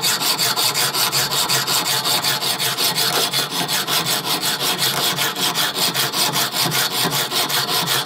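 Junior hacksaw cutting through a metal bolt clamped in a bench vise, in rapid, even back-and-forth strokes, cutting the bolt down to length.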